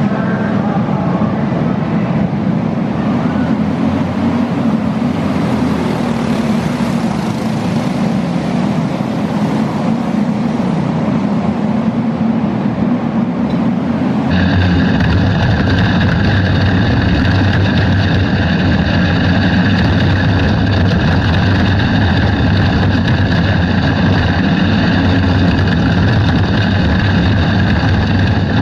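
Outlaw karts' single-cylinder engines racing around an indoor dirt track, heard first from trackside as an even drone. About halfway through it switches abruptly to the closer, louder sound of one kart's engine heard onboard, running at a steady pitch.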